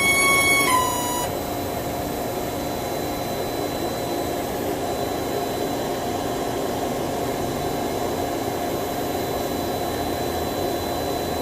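Star SR-20 CNC Swiss-type lathe running: a high-pitched whine dips in pitch and stops about a second in, leaving the machine's steady mechanical hum.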